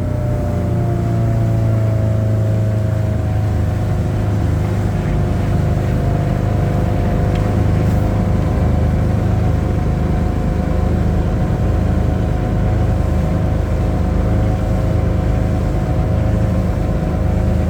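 An older four-cylinder boat engine in a Sea Ray runs steadily at part throttle while the boat is under way. Its pitch eases down slightly in the first couple of seconds after the throttle is pulled back, then holds steady.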